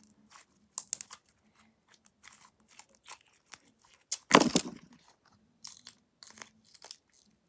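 Sticky glue slime being pulled and squeezed off the fingers: a string of short crackles and clicks, with one loud rustling thump about four seconds in.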